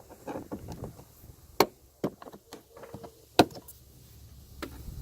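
Sharp clicks and knocks from an interior trim panel and its plastic clips being pried and worked loose, with two loud snaps about a second and a half and three and a half seconds in.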